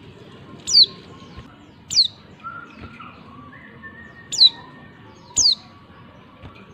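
Female white-eye (pleci) calling: four short, high notes, each a quick downward sweep, spaced one to two seconds apart.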